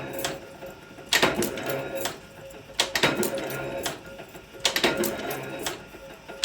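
Cutlery-making machine running in a repeating cycle, a burst of metallic clatter and clicks about every two seconds over a steady hum.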